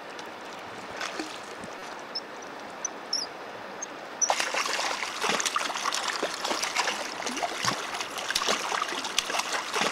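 Mountain river running steadily; about four seconds in the sound turns suddenly louder with close splashing as a hooked lenok thrashes at the surface.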